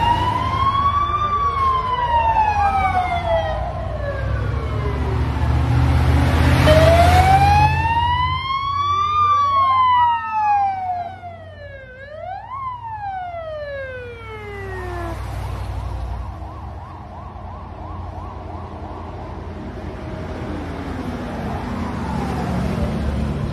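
Fire engine sirens wailing in several overlapping rising-and-falling sweeps over the low rumble of the passing trucks' engines. The sirens are loudest in the first half and grow fainter after about eleven seconds, leaving mostly engine noise with a fainter siren.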